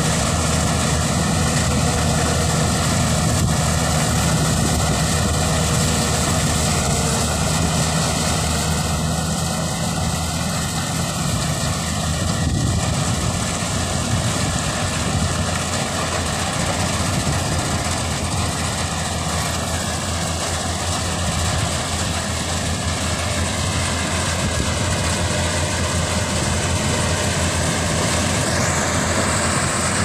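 Corn combine harvester's engine running steadily while the machine harvests corn. A high whine rises in pitch near the end.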